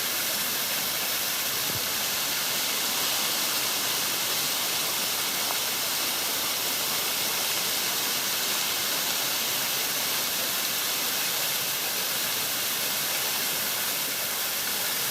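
Small cascading creek waterfall, water rushing and splashing steadily over rock.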